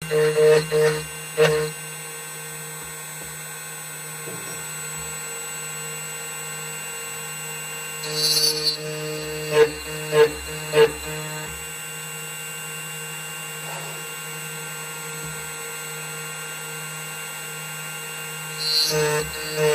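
2M2 Tank CNC key cutting machine running steadily while it cuts a TOY43 key blank, with a constant motor hum. There are short louder bursts at the start, a few more about halfway through, and again near the end.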